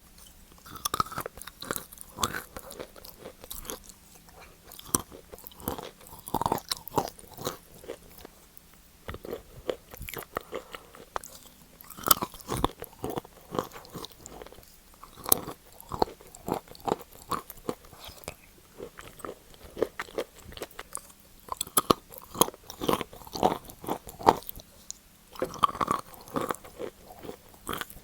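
Close-miked biting and chewing of wet chalk: irregular clusters of sharp crunches and soft, damp chewing clicks, with short pauses between bites.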